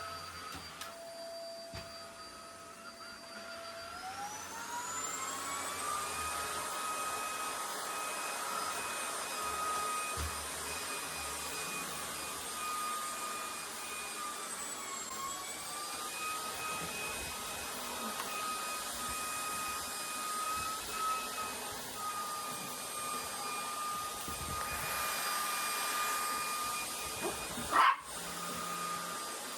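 Vacuum cleaner motor running with a steady whine that rises in pitch about four seconds in as the motor speeds up, dips briefly in the middle, and is cut through by one sharp click near the end.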